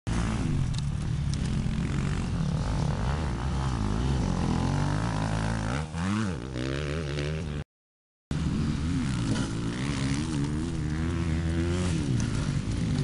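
Dirt bike engines revving up and down as bikes ride past on a dirt track, with one rising-then-falling sweep about six seconds in. The sound drops out for about half a second after roughly eight seconds, then the engine sound resumes.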